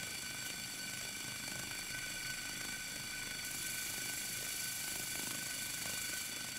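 Model aeolipile (Hero's steam turbine) running: steam jetting from the heated brass sphere with a steady hiss and a high whistling whine of several steady tones. The hiss turns a little brighter about halfway through.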